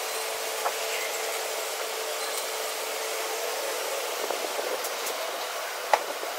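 Steady machine-like rushing noise with a faint steady hum, with one sharp click about six seconds in.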